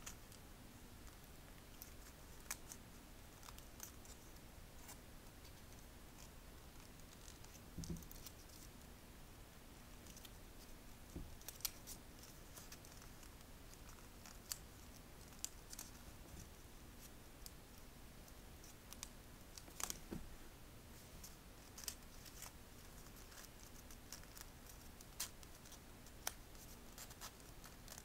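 Origami paper being folded and tucked by hand: faint, irregular crisp ticks and crackles of paper creasing, with an occasional soft thump.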